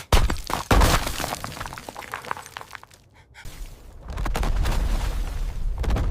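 Ice being smashed: two heavy impacts about half a second apart, each followed by crackling and shattering that fade over a couple of seconds. A steady low rumble sets in about four seconds in.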